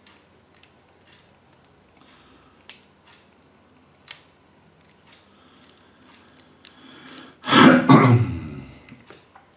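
A few faint, sharp clicks of small plastic toy parts being snapped together, then a person clearing their throat loudly for about a second and a half, near the end.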